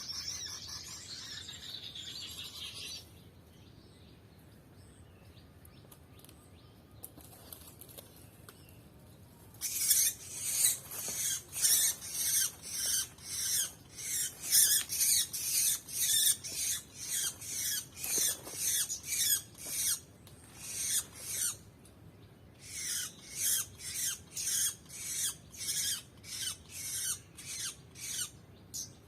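Bird sounds: a short high warble at the start, then long runs of sharp, rhythmic strokes about two a second, in two bouts with a short pause between.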